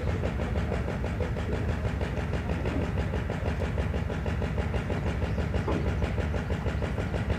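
Engine idling steadily, an even low rumble with a fast regular pulse.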